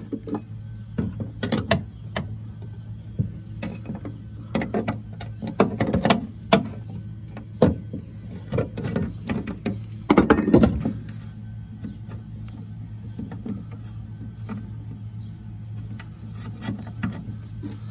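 A combination wrench and tongue-and-groove pliers working a 9/16 bolt tight on a steel bracket: irregular metal clicks and clinks, busiest about a second in, around six seconds and around ten seconds. The thread is gummed up and the nut is fighting the wrench.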